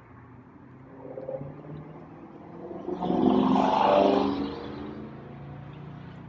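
A motor vehicle driving past, its engine note swelling to a loud peak about three to four seconds in, then fading away.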